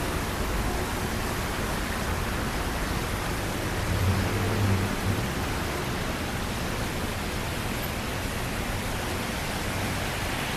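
Steady hiss of rain on a city street, with the low sound of traffic beneath it; a low rumble swells briefly about four seconds in.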